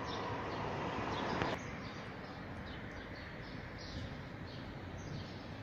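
Small birds chirping repeatedly in short, high, falling notes over steady outdoor background noise; a rushing noise cuts off abruptly about a second and a half in.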